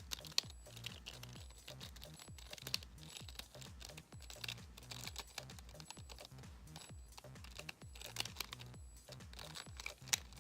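Rapid, irregular clicking and clacking of a plastic twisting puzzle's pieces being turned by hand during a timed solve, over background music with a low bass line.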